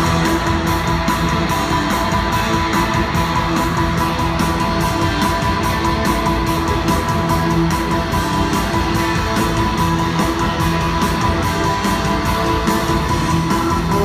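Rock band playing live in an arena: electric guitars over bass and a steady drum beat, heard through the PA from the crowd, with the bass and drums kicking in right at the start.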